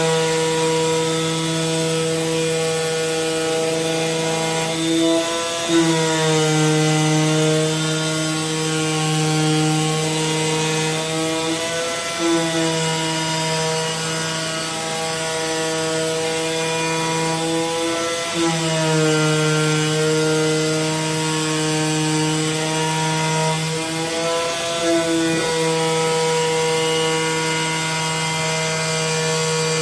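AOKE DCZ70 digital flatbed cutting plotter at work cutting a gasket sheet: a steady mechanical hum of several tones. The pitch shifts briefly about every six seconds as the machine's motion changes.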